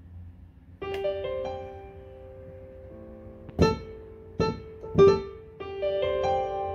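Studiologic Numa X Piano digital stage piano played with its piano sound. A chord starts about a second in and rings on, three sharp, loud struck notes follow, and another chord is held near the end.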